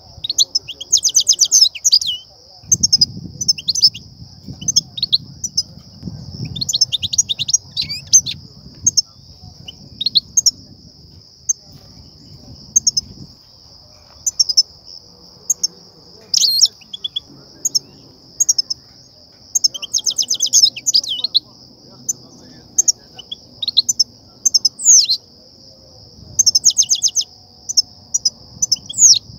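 European goldfinch calls: short chirps and bursts of fast twittering trills, coming in clusters every few seconds, with a steady high-pitched buzz underneath. These are the excitation calls ('betbeta'/'sestesa') used to get goldfinches singing and to lure them to trap nets.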